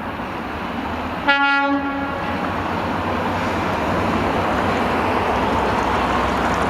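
A train horn sounds one short blast about a second in, over the steady, slowly building rumble of a train running on the rails.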